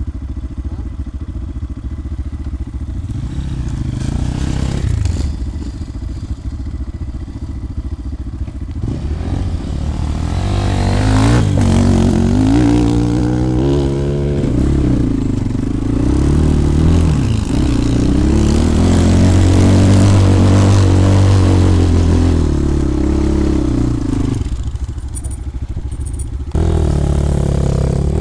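250 cc dirt bike engine run low at first, then revved up and down hard from about nine seconds in, as the bike is ridden off-road up a hill. It is loudest a little past halfway and eases off near the end.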